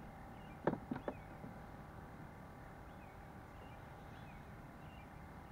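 A few short clicks and knocks about a second in, from fish and hook handling in a small fishing boat, over a low steady background hum.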